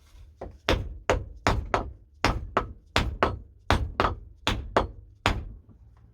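About a dozen sharp hammer blows, two or three a second, driving a wedge into the end of a wooden hammer handle to lock the head on.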